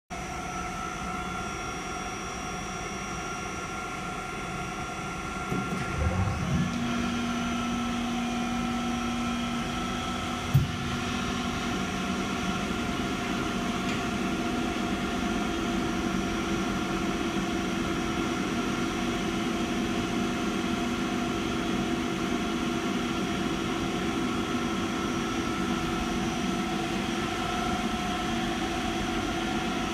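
Adicomp WIND rotary screw air compressor running with a steady mechanical hum and whine. About six seconds in it grows louder and a new low tone comes in, and there is a single sharp click about ten seconds in.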